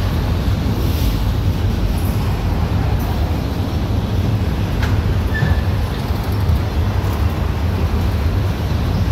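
Freight train of autorack cars rolling past close by, a steady rumble of steel wheels on rail.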